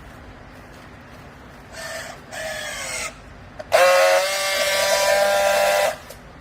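Scrap-clothing baling press giving out loud pitched squeals over a low machine hum: two shorter ones about two seconds in, the second falling in pitch, then a long steady one of about two seconds starting about four seconds in.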